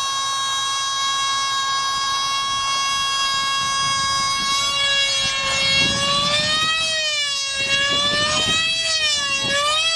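Model airplane's motor whining at a steady high pitch at full throttle through the hand launch; after about six seconds the pitch swings up and down repeatedly as the plane flies away overhead.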